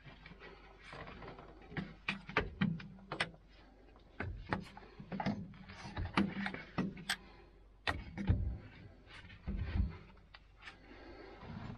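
Milwaukee cordless ratchet working a bolt, its motor running in several short bursts, among irregular clicks and knocks of the tool against metal fittings.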